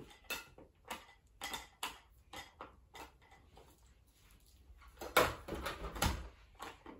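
Plastic toys being handled on a carpeted floor: a string of light clicks and taps, with a few louder knocks about five to six seconds in.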